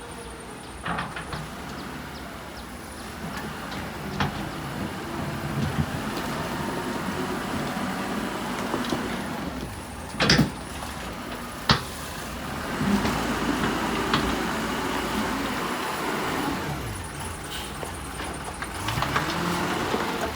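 Wheel loader engine running and revving up and down as the machine works, with two loud sharp knocks about ten and eleven and a half seconds in, and a few fainter clicks.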